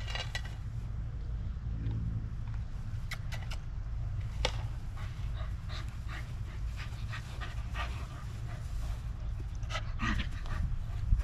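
A dog panting during disc play, with a few short clicks and taps, over a steady low rumble.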